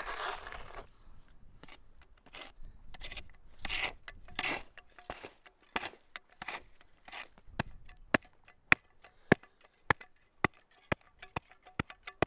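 Small folding shovel digging into rock-hard clay: scraping and scooping of dirt, then from about seven seconds in a steady run of sharp blade strikes, about two a second.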